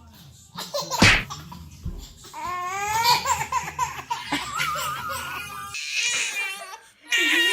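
A baby laughing and babbling in wavering, squealing bursts, with a single knock about a second in.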